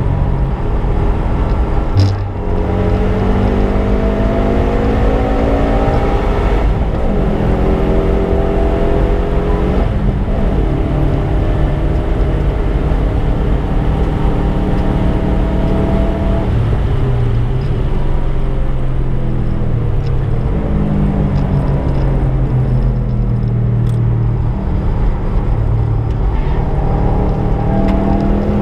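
Subaru Impreza's flat-four engine pulling hard through the gears, rising in pitch in each gear with a sudden drop at each change. It eases to lower, steadier revs in the middle, then climbs again near the end.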